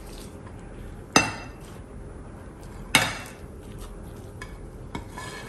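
Two ringing clinks of a ceramic plate knocking against a glass mixing bowl as chopped onion and green chillies are scraped off it into raw chicken mince with a silicone spatula, about a second in and again about three seconds in.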